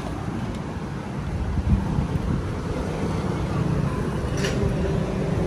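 Low, steady rumble of a vehicle engine running nearby, settling into an even hum about two seconds in. A short light metallic clink sounds near the end.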